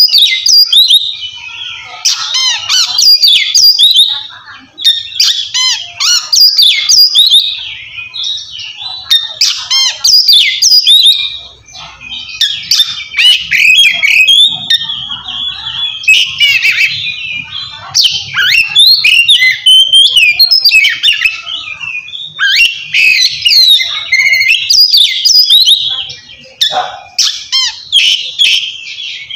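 Oriental magpie-robin (kacer) singing loudly in its full 'ngeplong' song: quick runs of clear whistles mixed with harsh, scratchy notes, broken by short pauses about eleven and twenty-six seconds in. It is the territorial song that calls out a rival male.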